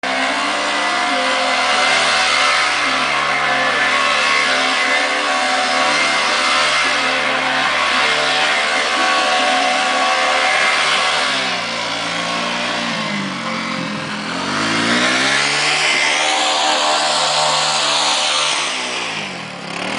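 Four-wheeler ATV engine running under throttle, holding a steady pitch for the first half, then revving up and down several times in the second half as the rider turns on the snow.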